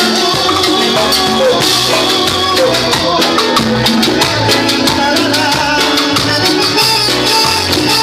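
Cumbia santafesina band playing, with an accordion over a stepping bass line and a steady percussion beat.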